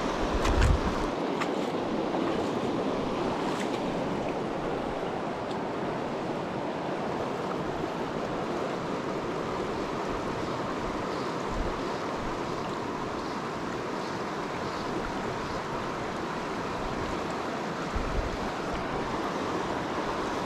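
Steady rushing of a shallow mountain stream flowing fast over boulders and riffles, with a few brief low thumps about a second in and near the end.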